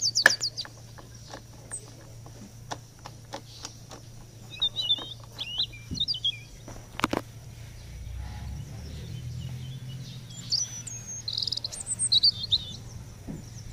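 Sharp clicks from a scooter's smart-key ignition knob being turned, loudest at the start, with another sharp click about seven seconds in. Birds chirp in short bursts in the middle and towards the end.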